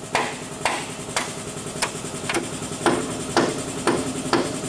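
Hammer blows on metal, about nine strikes at roughly two a second, some ringing briefly, hammering a stuck part that turns but won't come out.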